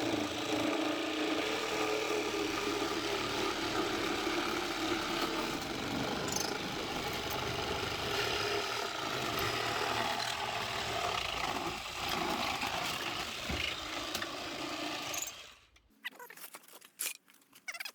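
Reciprocating saw running steadily as it cuts through material, stopping sharply about three-quarters of the way through, followed by a few scattered knocks and clatters.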